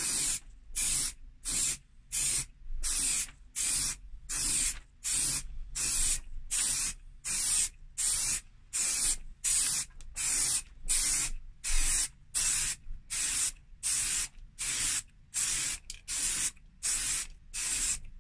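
Aerosol spray can of primer sprayed in short stop-start bursts, about two a second, each a loud hiss of spray with brief gaps between.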